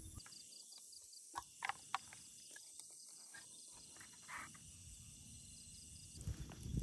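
Faint frog calls: a high, rapid pulsing trill, heard near the start and again midway, with a few light clicks in between.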